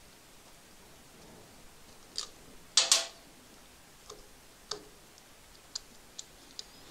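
Scattered small metallic clicks and clinks as the stator's retaining nuts, thick washers and spacers are worked off their studs by hand. The loudest clink comes about three seconds in.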